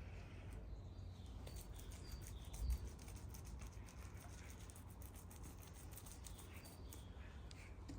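Small birds giving short high chirps several times over a steady low rumble, with a run of light rapid clicks in the first half and a soft low thump about a third of the way in.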